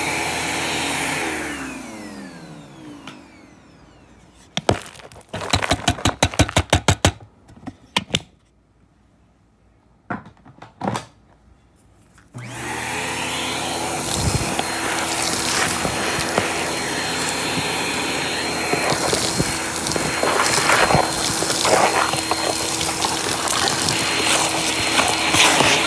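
Vacuum cleaner switched off and spinning down, then a quick clatter of small hard items such as beads and buttons, a few taps, and near silence. Near the middle the vacuum starts up again and runs steadily with a thin high whine while its hose sucks up the dirt and beads.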